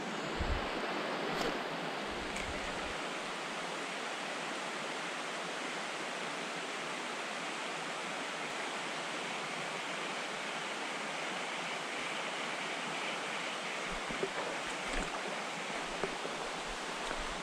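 Small forest trout stream running over a shallow riffle: a steady, even rush of water.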